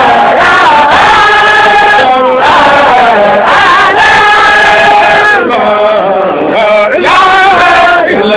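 A man's voice chanting an Islamic dhikr (zikr) in a long, ornamented melody, holding notes and sliding between them.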